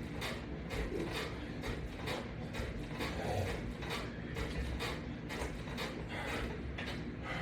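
Resistance-band exercise attachment hardware clicking and rattling in a steady rhythm, about three clicks a second, with each repetition of the workout.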